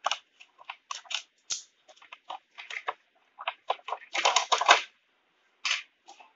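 Clear plastic blister packaging crinkling and crackling as hands peel it away from the card and pull the toy car out, in quick irregular crackles with a dense, loud run of crackling about four seconds in.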